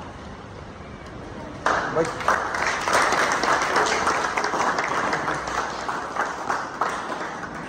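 A group of people breaking into applause about two seconds in, the clapping dense at first and thinning out toward the end.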